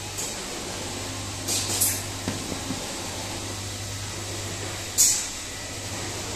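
Industrial sewing-room machinery noise: a steady low hum with a faint high whine, broken by short sharp hisses, a quick double one about a second and a half in and a louder single one about five seconds in.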